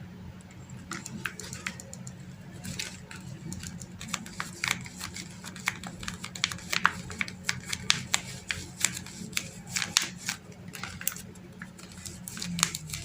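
Paper being handled and folded by hand: irregular sharp crinkles and clicks, busier after the first few seconds, over a steady low hum.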